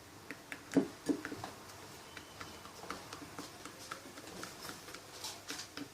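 Glue-based slime mixture being stirred in a bowl, the stirrer tapping and clicking against the bowl in quick irregular ticks, with the loudest knocks about a second in.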